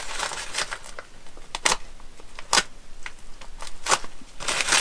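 Brown kraft paper wrapping on a parcel crinkling and tearing as it is pulled open by hand, with several sharp crackles of paper along the way.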